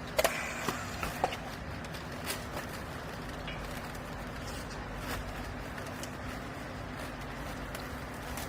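Steady low machine hum, with a quick cluster of sharp knocks in the first second and a half and a few fainter knocks later.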